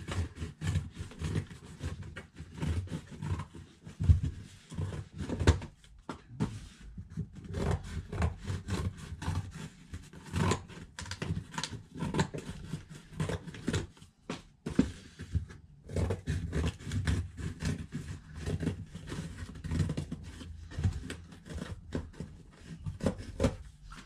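Scissors cutting cardboard and a cardboard shipping box being trimmed, folded and handled: many short snips, clicks and scrapes over a low, uneven rumble.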